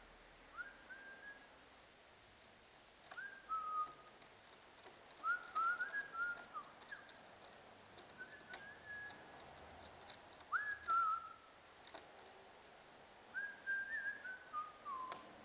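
A person whistling a tune in short phrases of gliding notes, repeated every few seconds, with faint clicks and taps between them.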